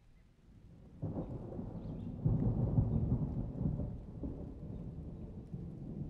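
A low rumble that swells about a second in, is loudest a second or two later, then trails off.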